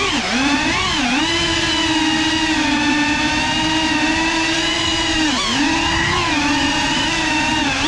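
Whine of a GEPRC Cinelog 35 3.5-inch cinewhoop's brushless motors and propellers in flight. The pitch mostly holds steady and dips briefly a few times as the throttle is eased.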